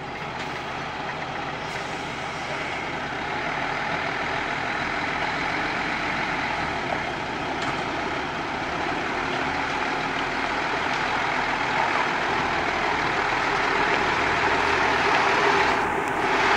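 Mercedes-Benz Actros 4141 concrete mixer truck's diesel engine running, the sound growing steadily louder.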